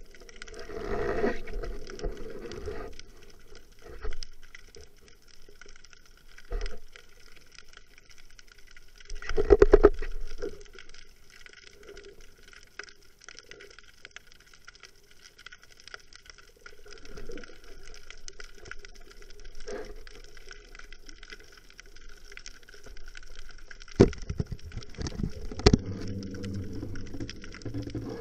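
Underwater sound: a faint steady hiss broken by several short bursts of bubbling, the loudest about ten seconds in, and a run of sharp clicks and knocks near the end.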